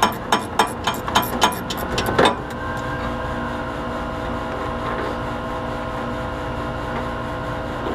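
Socket ratchet clicking in a quick run of strokes for about two seconds as a compressor mounting bolt is worked loose, then stopping. A steady machinery drone with several held tones carries on underneath throughout.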